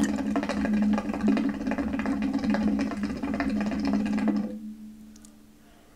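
Water in a Nitro hookah's base bubbling steadily as a long pull is drawn through the hose: the first pull on a freshly lit bowl. The bubbling stops about four and a half seconds in.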